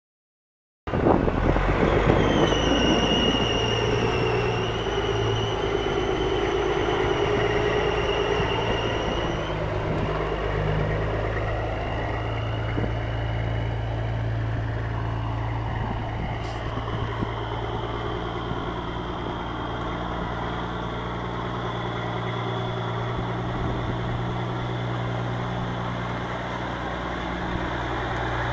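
Caterpillar 3406 inline-six turbo diesel in a Peterbilt 379 semi truck, idling steadily. For the first several seconds a high, wavering whine sits over the engine sound, then it fades out.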